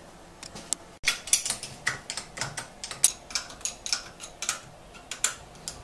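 Small, sharp metallic clicks and taps from about a second in, irregular at roughly three a second, as a wire and its fastener are worked onto the solenoid terminal of a Ford V8 starter motor by hand.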